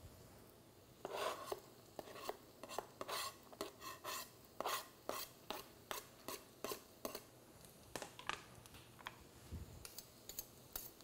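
A steel knife blade scrapes and taps minced garlic off a plastic cutting board into a frying pan, making a run of short clicks and scrapes about two a second. Near the end it thins to a few lighter taps of a utensil in the pan.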